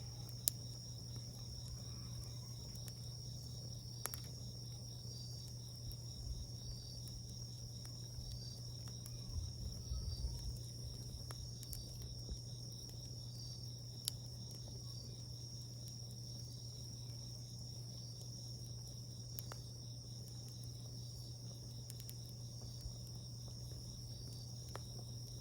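A steady high insect trill, typical of crickets, with sharp single pops and crackles from a wood fire every few seconds.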